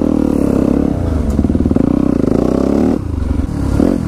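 Dirt bike engine running close by, its revs rising and falling with the throttle.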